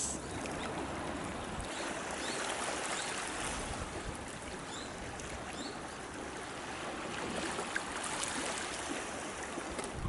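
Calm sea washing and trickling over rocks in shallow water at the shoreline, a steady, even wash of small waves.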